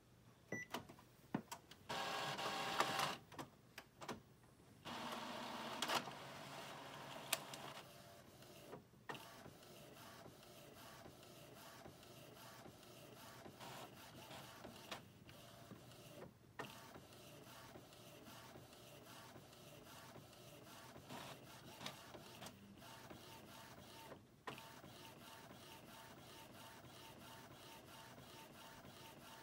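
Epson WorkForce ET-4750 EcoTank inkjet printer printing its vertical alignment test page. After a few clicks there are two louder mechanical whirring stretches in the first several seconds, then a steadier, quieter running with regular clicks as the page is printed and fed out.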